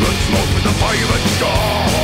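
Loud heavy metal music without vocals: a dense band sound with a lead line wavering up and down.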